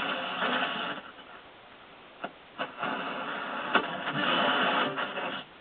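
AM radio static from a Zenith Circle of Sound clock radio's speaker as the dial is tuned between stations: a steady hiss with several sharp crackles and pops. It drops quieter a little after a second in, then comes back up.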